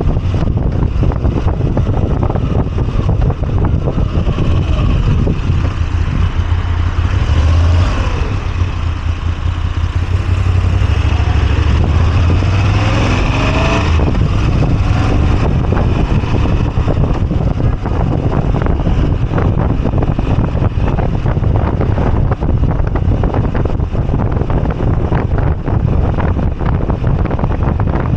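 Moto Guzzi V85TT's air-cooled transverse V-twin running under way, with wind rushing over the microphone. The pitch rises and falls about a third of the way through.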